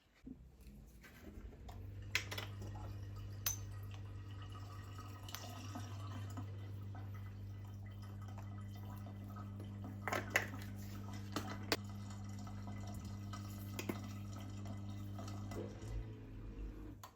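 A steady low electric hum that starts about two seconds in and stops shortly before the end, with occasional light clinks and taps over it.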